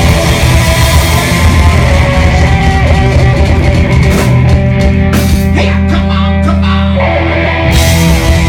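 Live hard rock band played loud: distorted electric guitars and bass hold chords while the drummer pounds out hits and cymbal crashes, with a bright crash near the end.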